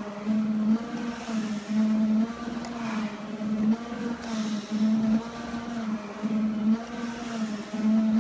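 Motorized stair-climber machine running with a steady droning hum that breaks and returns in a regular rhythm about once a second. Every couple of seconds there is a hissing breath through a firefighter's respirator mask.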